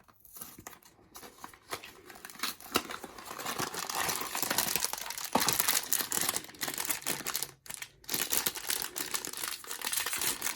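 Blind-box packaging being opened by hand: the box and the wrapper inside it crinkled and torn. It makes a dense run of crackles that grows louder after a few seconds, with a brief break about three quarters of the way through.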